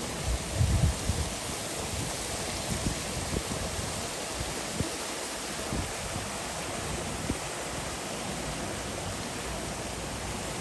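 Water pouring from a spout into a pool, a steady splashing rush as it churns the surface into froth. A few low thumps stand out about a second in.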